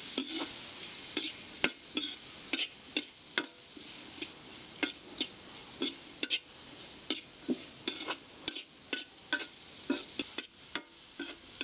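Slotted metal spatula scraping and clinking against an iron kadai as diced carrots and onions are stir-fried, with a faint sizzle of the oil underneath. The clinks are irregular, about two or three a second.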